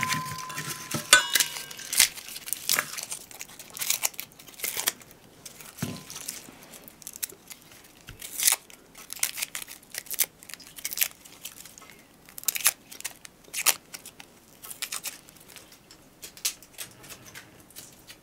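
Garlic cloves being peeled with a small knife: irregular dry clicks, scrapes and crackles of papery skin being cut and pulled away. A ringing clink fades out in the first second or so.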